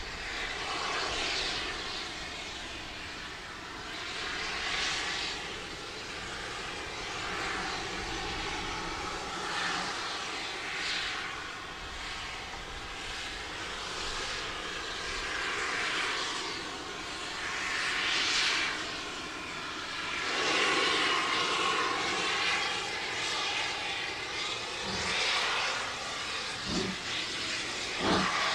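GWR 1500-class pannier tank locomotive 1501 working a passenger train under steam, its exhaust chuffing and hissing steadily and growing louder after about twenty seconds as it draws near. A few short knocks come near the end.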